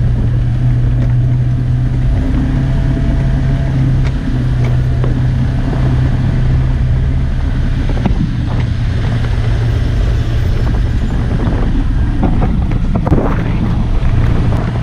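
Vehicle engine running with a steady low drone and rumble from a dirt road, with a few short knocks along the way.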